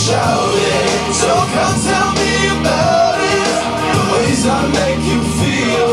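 A live rock band playing between sung lines: drums with cymbals, bass guitar and electric guitar through stage amplifiers, with sustained low bass notes.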